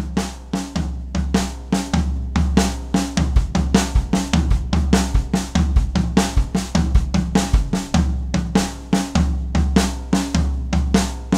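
Gretsch drum kit played with sticks and a bass drum pedal: a fast, even, repeating lick of hand strokes with a kick drum between each pair of hand notes (right, kick, right, left, kick, left).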